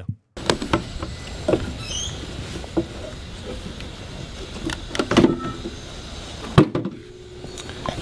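Mowrator S1 remote-control mower, 56-volt battery-electric, running steadily with its blade cutting lawn grass, with scattered sharp knocks. The sharpest knock comes about six and a half seconds in, and the running sound is a little quieter after it.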